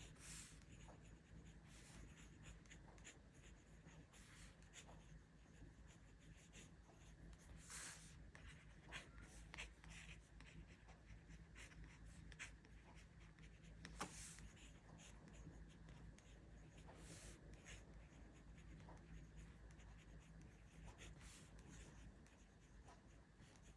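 Faint scratching of a pen writing on paper in short irregular strokes, over a low steady hum.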